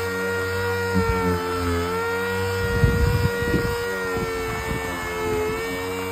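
Handheld electric polishing machine running on a plastic headlight lens: a steady motor whine that sags slightly in pitch about two seconds in and again near five seconds as it is pressed to the lens, with some rubbing and knocking of the pad against the lens in the middle.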